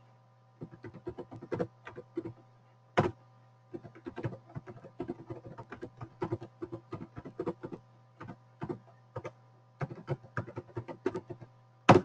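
Irregular clicking and tapping of a computer keyboard and mouse, several clicks a second, with two sharper clicks about three seconds in and at the end. A steady electrical hum runs underneath.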